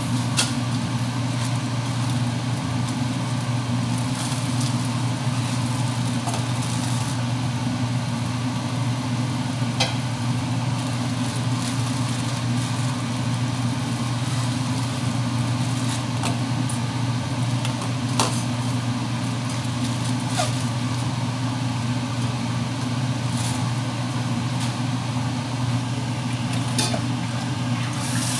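A steady low machine hum, with a plastic bag crinkling now and then and a few light clicks.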